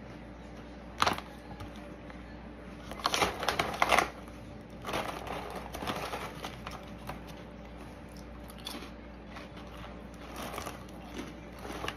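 A plastic snack bag crinkling as it is handled, and crunchy puffed rice crackers being chewed, in short irregular bursts with quiet between them.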